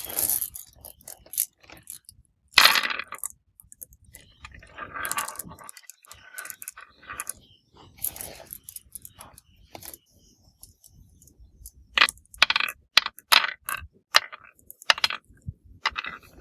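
Marbles running down a marble run track, clacking against each other and the track in irregular sharp clicks with short rattling rolls, and a quick run of clicks near the end.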